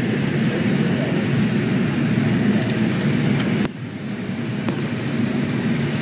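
Steady drone of engines and airflow inside the cabin of an airliner in flight. It drops suddenly about two-thirds of the way through and then builds back up.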